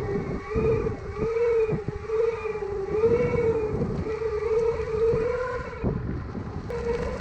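Dual brushless motors of an H2C off-road electric skateboard whining steadily under throttle, the pitch wavering slightly and dropping out briefly about six seconds in, over a low rumble of the wheels on rough ground.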